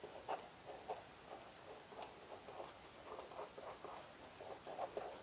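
Felt-tip marker writing letters on paper: faint, irregular scratching strokes.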